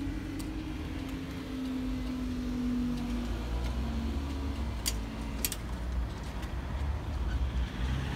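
Road traffic at a level crossing, a low rumble of cars driving over the crossing once the barriers are up. A low hum slowly falls in pitch and fades over the first few seconds, and two sharp clicks come about five seconds in.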